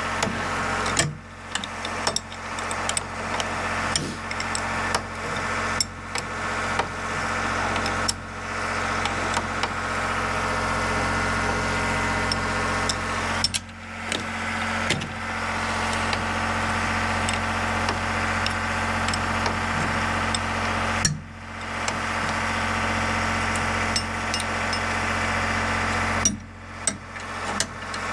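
A small portable generator engine running steadily, with occasional metal clinks from parts being handled.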